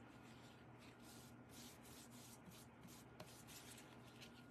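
Near silence, with faint soft scratching of a paintbrush stroking paint onto a wooden cutout.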